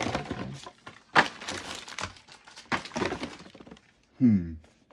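Plastic bags and packaging crinkling and rustling in bursts as a hand rummages through a cardboard box of bagged phone accessories. A short falling voice sound near the end.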